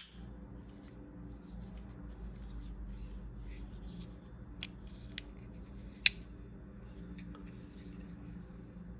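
Ozark Trail folding flipper knife being handled in the hand: faint rubbing with a few short, sharp clicks, the loudest about six seconds in.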